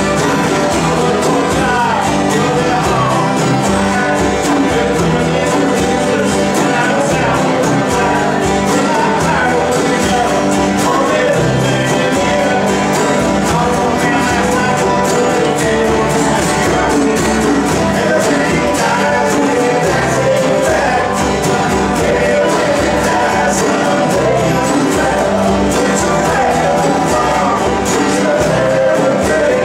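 Several acoustic guitars strummed together with a man singing over them, in a live jam.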